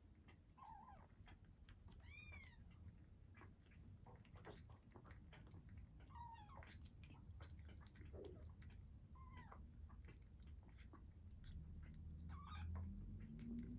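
A kitten suckling milk from a nursing bottle, with faint wet clicking and smacking throughout, while kittens let out about six short, high mews.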